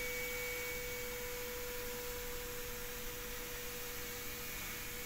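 Kress 800 FME router spindle running at speed: a steady whine over a faint hiss.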